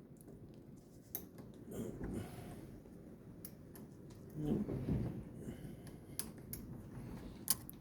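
Faint, scattered small clicks and light scrapes of a thin craft-knife blade working against the steel locking collar and its spring-loaded pegs on a gearbox mainshaft. There are two duller rustling handling noises, about two seconds in and again near the middle.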